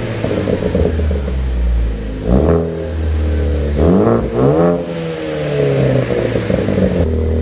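Ford Focus ST's turbocharged 2.0-litre four-cylinder running through a newly fitted 3-inch Roush cat-back exhaust. It idles steadily and is revved three times: one blip a little after two seconds in, then two quick blips close together about four seconds in, each rising and falling back to idle.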